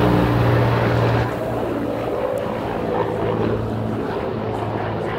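Helicopter flying overhead: a steady drone with a low hum. It is loudest for about the first second, then settles a little quieter.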